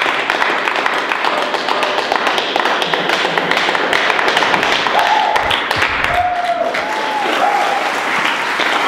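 A small group of people applauding, steady hand-clapping throughout, with a few short held tones about halfway through.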